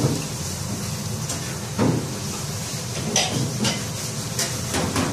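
A few light clinks and knocks of crockery and cutlery at the table, over a steady low background hum.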